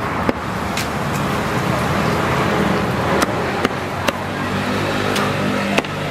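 A cleaver chopping charcoal-grilled chicken on a wooden chopping board: about seven sharp chops at uneven intervals, two in the first second and the rest from about three seconds in. A steady din of street traffic runs underneath.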